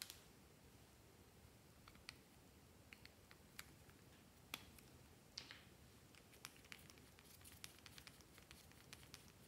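Near silence with faint, scattered clicks and taps of fingernails handling a small plastic tube, and a brief soft swish about five seconds in.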